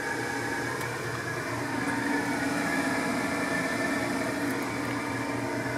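Steady mechanical hum of a running machine: a low drone with several steady tones above it, swelling slightly in the middle.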